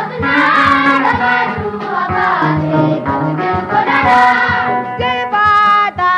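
A group singing a slow song with instrumental backing and a repeating low note underneath. In the last second one long wavering note is held.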